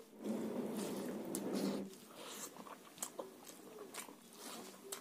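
Close-miked eating sounds: for about two seconds, a wet squishing as rice and fish curry are mixed by hand, then scattered soft chewing and lip clicks.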